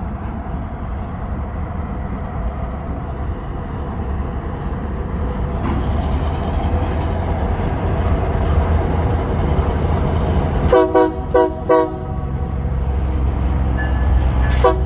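Union Pacific diesel locomotive running with a steady low engine rumble that grows slowly louder, then sounding its horn in three short blasts about eleven seconds in and starting another blast at the very end.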